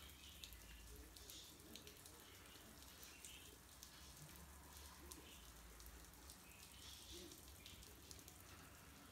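Near silence: faint room tone with scattered soft ticks.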